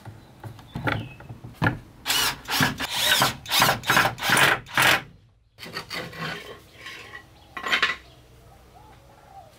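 A hand tool working wood in quick repeated strokes, about two a second, followed by a short break and a few scattered, weaker strokes.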